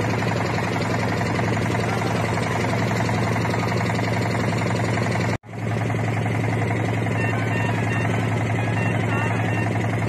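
A motorboat's engine runs with a steady low drone. The sound breaks off for an instant about halfway through, then the same drone carries on.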